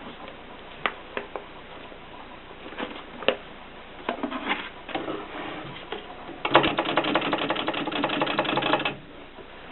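AEG Mignon 4 index typewriter mechanism: a few separate clicks, then a fast rattle of clicks lasting about two and a half seconds.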